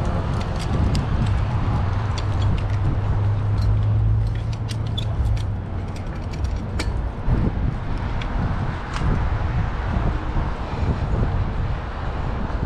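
Vehicle noise with a steady low hum for the first four seconds or so, and scattered sharp clicks and creaks throughout.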